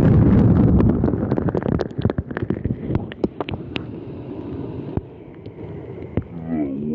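Wind buffeting the microphone, heavy for the first two seconds and then easing, with many sharp clicks and knocks. A brief wavering pitched sound comes near the end.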